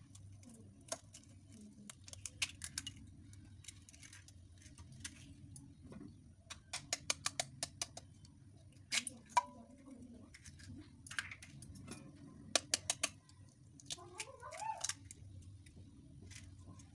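Eggs being tapped and cracked on the rim of a stainless-steel bowl, one after another: sharp taps of shell on steel, several in quick runs.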